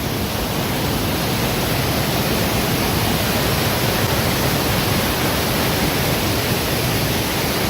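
Waterfall in spate on a rain-swollen river: a steady, loud rush of falling water with no breaks.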